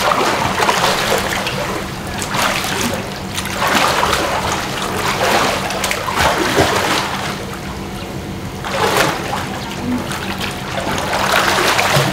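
Pool water splashing in uneven bursts as children swim and kick their legs.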